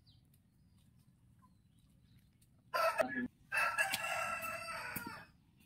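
A rooster crowing once, starting near the middle: a short first note, a brief break, then a long drawn-out call.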